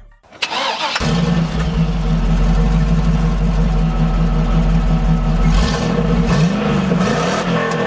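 A vehicle engine starts up about half a second in and settles into a steady idle, then is revved briefly, rising and falling in pitch, near the end.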